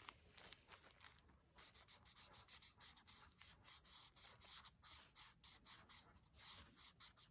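Liquid chalk marker scribbling on black coloring paper: faint, quick scratchy strokes, several a second, growing busier about a second and a half in.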